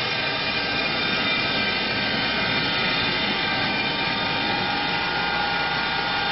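Four-axis, four-tool CNC wood lathe running with a steady machine whir, a faint whine joining about four seconds in.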